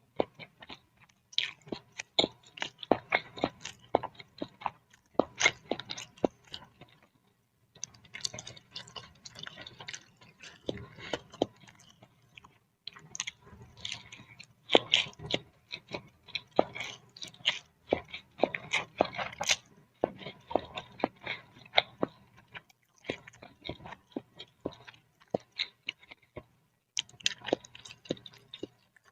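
Close-miked chewing of boiled instant noodles in broth: runs of quick wet mouth clicks, broken by brief pauses every few seconds.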